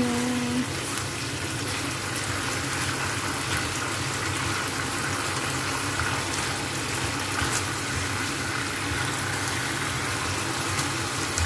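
Chicken and carrots in a thick tomato sauce bubbling and sizzling in a frying pan, stirred with a silicone spatula, with a few faint scrapes and taps against the pan.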